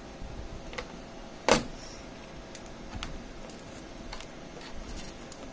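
Handling noise from a plastic solar-panel junction box and its wires being worked by hand: one sharp click about a second and a half in, and scattered small clicks and taps.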